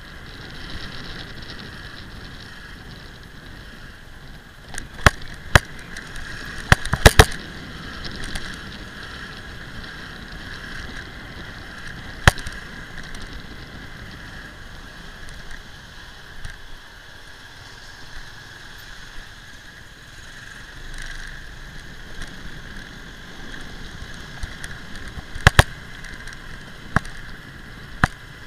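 Steady running noise while riding a maxi-scooter, with loud sharp knocks from jolts: a cluster about five to seven seconds in, one near twelve seconds, and a couple near the end.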